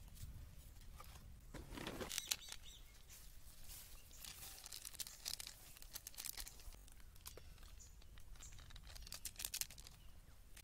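Faint crinkling and rustling of a plastic spice packet being handled and shaken out, in a few short spells of soft clicks over a low background rumble.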